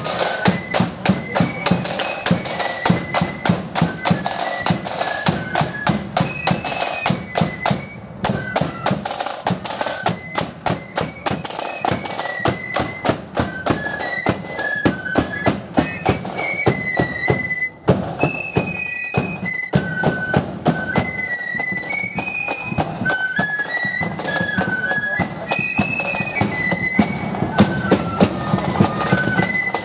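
Marching flute band playing a tune on flutes, a high piping melody over a steady beat of side drums and bass drum. There is a momentary break about eighteen seconds in, after which the tune carries on.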